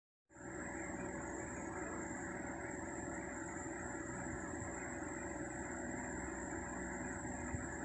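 Steady vehicle running noise, with a constant faint high whine over it; it starts just after a short gap of silence.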